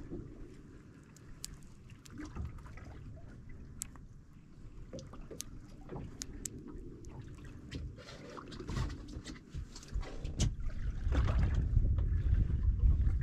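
Sea water lapping and trickling against the hull of a small fishing boat, with scattered small splashes and clicks over a low rumble that grows louder near the end.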